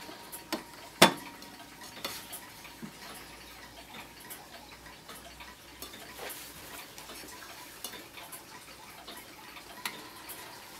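Antique oak-cased mantel clock ticking, with one sharp click about a second in as its hinged glass bezel is opened. Lighter clicks follow as the minute hand is turned by hand.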